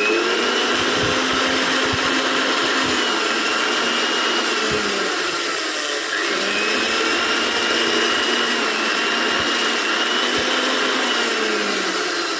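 Electric mixer grinder switched on and running at high speed with a loud, steady motor whine. Its pitch sags about five seconds in, climbs back up, then falls away near the end as the motor slows.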